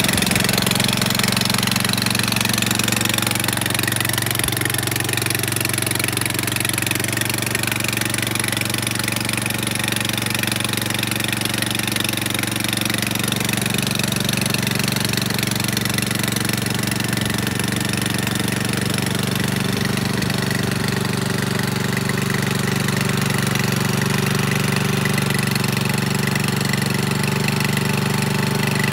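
Small OHV engine running steadily at an even idle.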